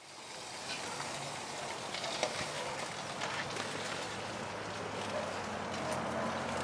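Steady outdoor hiss with a few scattered faint clicks and ticks, fading in at the start.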